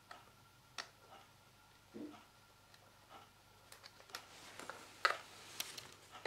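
Faint, irregular plastic clicks and taps from hands handling the opened half of a Kinesis Freestyle 2 keyboard, fitting its small circuit board and connector over the replacement Mylar key membrane. A duller knock comes about two seconds in, and the clicks grow denser in the second half, loudest about five seconds in.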